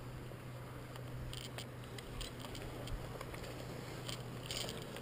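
Bracken fronds rustling and crackling as someone pushes through dense ferns on foot, in a few short bursts, the most marked about a second and a half in and near the end. A faint steady low hum runs underneath.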